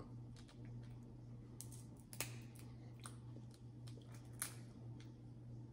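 Faint clicks and crackles of boiled shellfish shell being picked apart by hand to get the meat out, with several sharper cracks spread through the middle, over a low steady hum.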